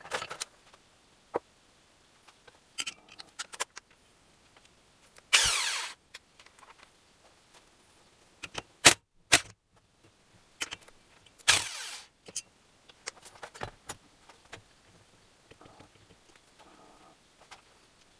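Small metal parts and tools clinking and knocking during hand work on an engine, with two louder half-second scraping rattles about six seconds apart.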